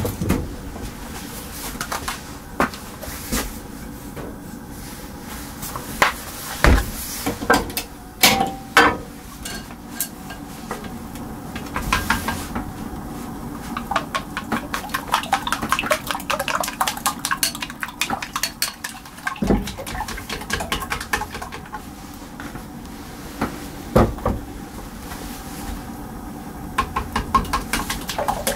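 Cookware and kitchen utensils clattering and knocking at a gas stove, with several sharp knocks and runs of quick, rapid taps.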